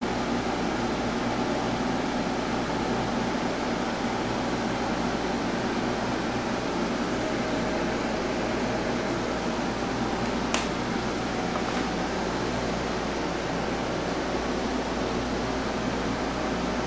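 Steady fan-like hiss with a low hum, like a room fan or air conditioner running; a single sharp click about ten seconds in.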